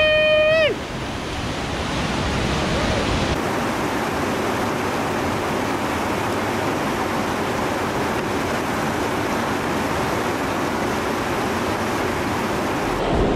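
Whitewater rapid at about 300 cfs rushing steadily over boulders and ledges. A short, high, held yell in the first second is the loudest sound.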